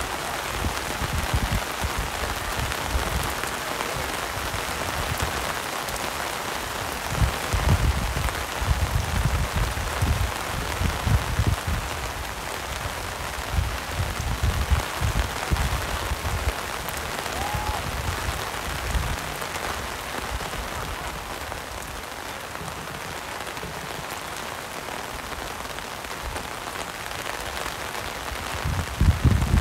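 Steady rain falling, an even hiss throughout, with irregular low rumbles that come and go.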